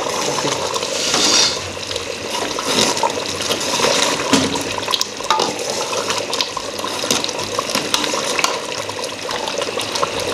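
Potato and pea curry boiling hard in a metal pot, bubbling and popping with many small clicks, while a metal ladle stirs it; the watery gravy is being cooked down to thicken.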